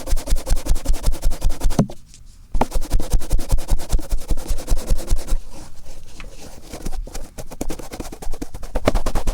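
Cotton swab rubbed hard in the right ear in rapid scratchy strokes, about six or seven a second, breaking off for a moment about two seconds in and going softer for a couple of seconds past the middle before picking up again.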